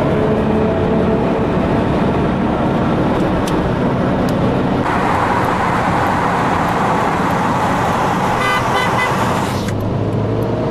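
Car engine pulling under acceleration, heard from inside the cabin, its pitch rising slowly. About five seconds in, a loud rush of wind and road noise sets in and covers it, then cuts off abruptly just before ten seconds, with a brief run of quick beeps near its end.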